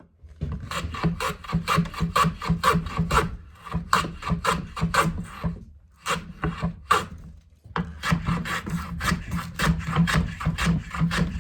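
Hand plane shaving a rough-cut elm board in quick, repeated scraping strokes, about four a second, taking the board's thickness down toward a marked line. The strokes pause briefly twice midway.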